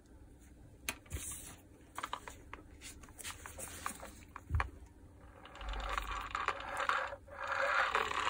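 Light clicks and knocks of a Makita 9227C polisher being handled with its carbon brushes removed. Then, from about five and a half seconds in, its spindle is turned by hand, the gear reducer and armature spinning with a steady mechanical whirr that grows louder near the end; the armature turns freely, with nothing rubbing.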